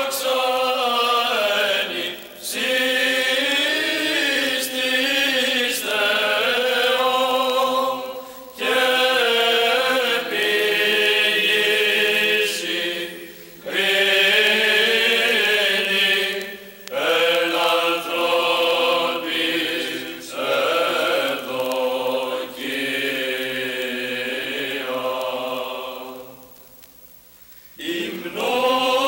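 Orthodox church chant sung in long melodic phrases with short breaks between them. It dies away for a couple of seconds near the end, then starts again.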